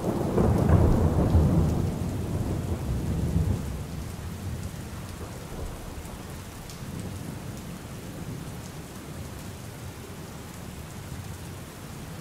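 Rain falling steadily, with a low roll of thunder in the first few seconds that fades away by about four seconds in.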